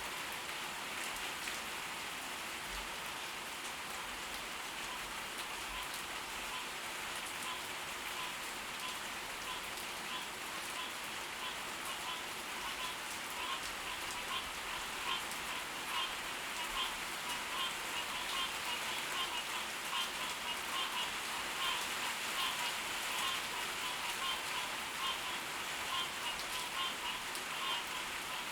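Steady tropical storm rain falling. From about halfway through, a rhythmic pulsing sound grows louder over the rain.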